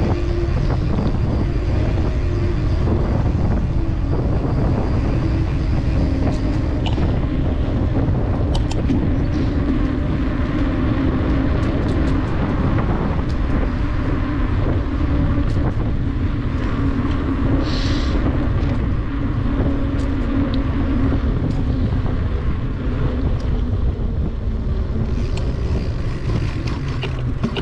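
Wind buffeting the microphone of a camera riding along on a moving bicycle, with tyre and road noise and a steady hum underneath. A brief high-pitched squeak about eighteen seconds in, and a few faint clicks.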